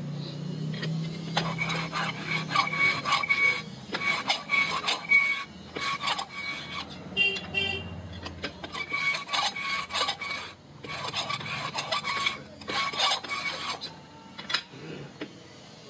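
Hand-turned valve seat cutter scraping metal from a valve seat in a new Eicher NC cylinder head: a rasping scrape with a faint ring in it, in repeated strokes of one to two seconds with brief pauses, stopping about 14 seconds in.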